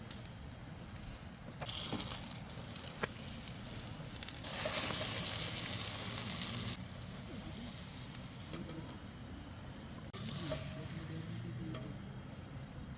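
Egg and sausage omelette frying in hot oil in a pan, sizzling. The sizzle swells in spells: about two seconds in, louder from about four and a half to seven seconds, and briefly again near ten seconds.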